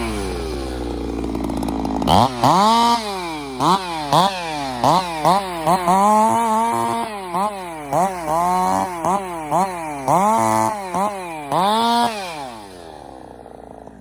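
Husqvarna 372 chainsaw with a 75cc big-bore cylinder, revved up and down about a dozen times in quick succession, its pitch climbing and falling with each burst of throttle. The revs drop and the saw settles down near the end.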